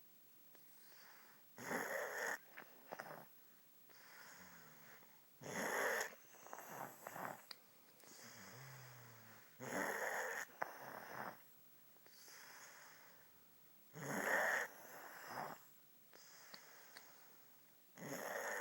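A woman snoring in her sleep, a strong snore about every four seconds, five in all, with quieter breathing between them.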